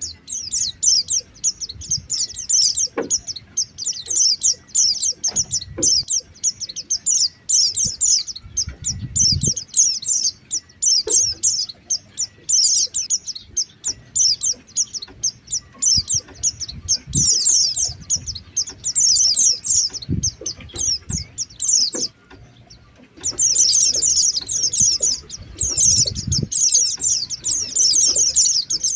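White-eye (pleci) lure call: long runs of rapid, high chattering chirps that break off briefly a little past the middle, with scattered low thumps underneath.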